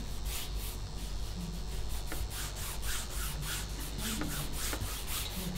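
A sponge scrubbed back and forth across painting paper on a wooden board, a quick run of rubbing strokes at about three a second, spreading wet yellow paint.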